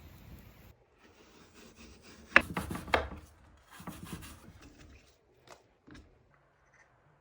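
Rubbing and scraping handling sounds in two short bursts, followed by a few light knocks.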